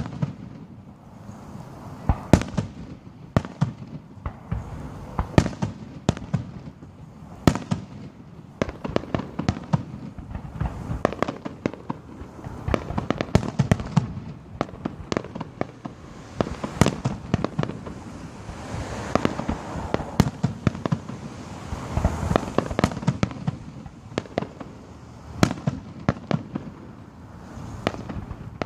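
Fireworks going off: a long run of sharp bangs and pops at irregular intervals, often bunched into rapid clusters.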